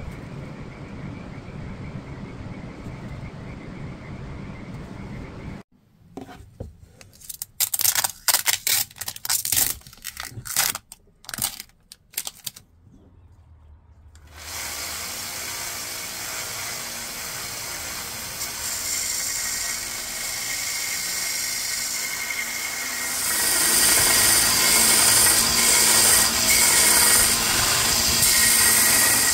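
Small bench belt sander running steadily, then grinding against a wooden stick and getting louder about two-thirds of the way through. Before it starts there is a steady low hum, followed by several seconds of irregular sharp clattering.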